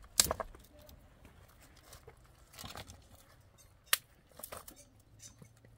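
Dry branch being handled and broken: a sharp crack just after the start, a short rustling scrape in the middle, and another sharp crack near four seconds, followed by a few small clicks.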